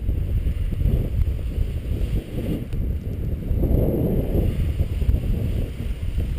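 Gusty wind buffeting the microphone: a heavy, fluctuating rumble, swelling about four seconds in.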